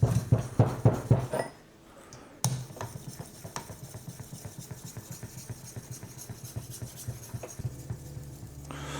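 Rhythmic strokes of a 3000-grit sharpening stone on a guided-rod knife sharpener, drawn along a steel blade edge, giving about four light scraping ticks a second. The strokes pause briefly, a single sharp click comes about two and a half seconds in, and lighter strokes follow.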